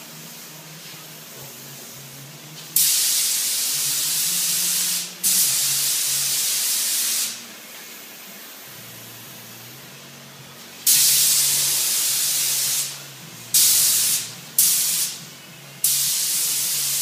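Sagola detail touch-up spray gun with a 1.0 mm tip spraying paint: six hissing bursts, each starting sharply as the trigger is pulled, most about two seconds long and two much shorter, with a longer pause in the middle. A steady low hum runs underneath.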